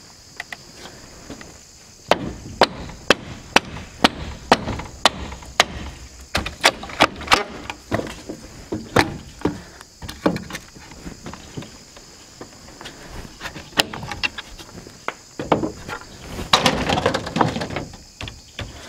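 Handsaw cutting through an old, weathered wooden roof slat in quick strokes, about two a second. Then scattered knocks and cracks of wood as the cut pieces are worked loose, with a short burst of rapid strokes near the end.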